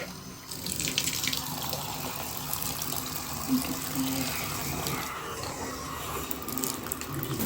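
Water running from a bathtub tap, a steady rushing stream.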